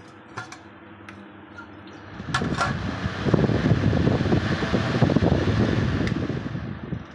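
A few clicks, then from about two seconds in a three-blade high-speed farrata fan pushes a strong gust of air that buffets the microphone with a loud, fluttering rush. The rush lasts about four seconds and falls away near the end.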